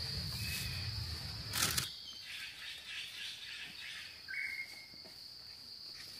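A steady, high-pitched insect drone with a few short bird chirps, one of them about four seconds in. Low rumbling handling noise fills the first two seconds and ends in a sharp rustle.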